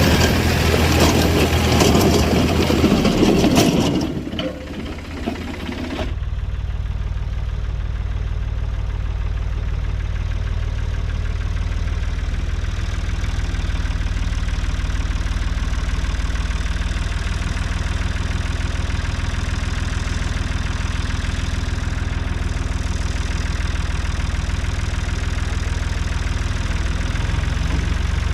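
Tractor engine running steadily. About four seconds in the sound drops and changes, and from about six seconds a duller, steady low engine note carries on.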